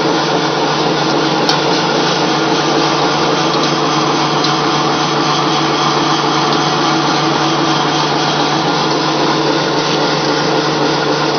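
Flat die pellet mill running under load, pressing feed meal into pellets: a steady, loud mechanical drone with a constant hum of its geared drive.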